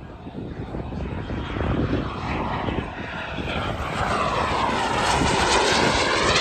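Turbine jet engine of a 1:4 scale Tomahawk Aviation F-16 model jet making a display pass, its whine and rush growing steadily louder as it approaches and loudest near the end as it passes close by.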